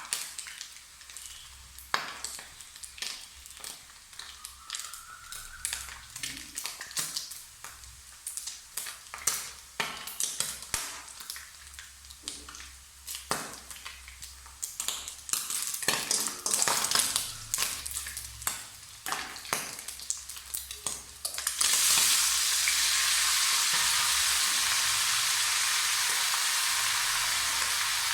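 Food frying in oil in a pan, stirred with a spatula that clicks and scrapes against the pan over a sizzle. About 21 seconds in, a sudden loud, steady sizzle starts and slowly fades.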